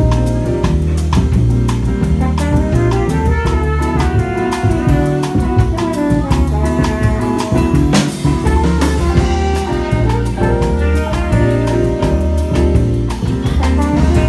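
Live jazz combo playing: a keyboard solo of moving single-note lines over a walking bass and a drum kit with steady cymbal strokes.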